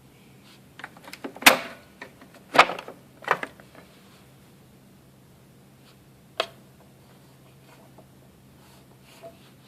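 A few sharp knocks and clunks come close together in the first few seconds, then a single sharp click a few seconds later, over a faint steady hum. These are handling knocks, with no motor running.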